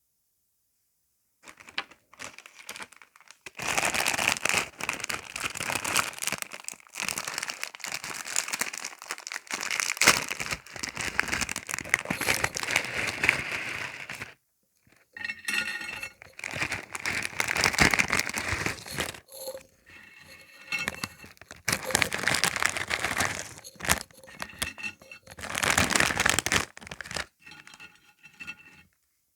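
Sweet wrapper crinkled and torn open, in several long bouts of crackling with short pauses between them.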